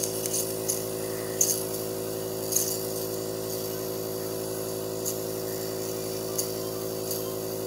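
Nebulizer compressor running with a steady motor hum, with several light taps on the medicine cup to shake the last of the medicine down.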